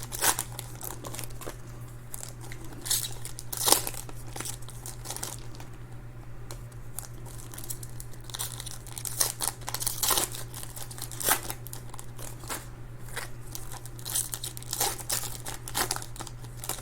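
Trading-card pack wrappers being torn open and crinkled by hand, a scattered run of sharp crackles and rips, over a steady low hum.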